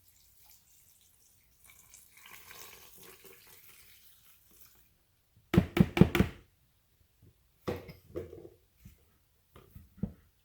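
Liquid running or pouring into a container. Then a quick run of four or five loud knocks, as a utensil is tapped against a container, with a few more knocks later.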